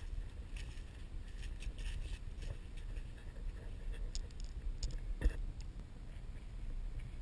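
Wind rumbling on an action camera's microphone, with scattered light rustles and clicks from the camera moving and one sharper knock about five seconds in.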